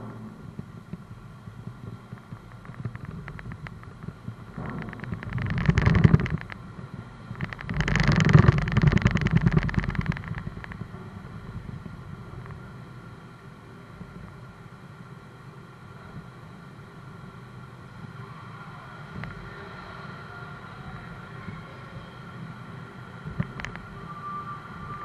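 Car driving slowly across a ferry's steel loading ramp onto the car deck: a low steady rumble, with two loud bouts of rapid rattling clatter about five and eight seconds in.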